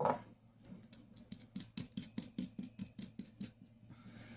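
Small, light clicks in a quick, fairly even run of about five a second, from the lock cylinder and steering lock assembly being handled and fitted together. A faint steady hum lies underneath.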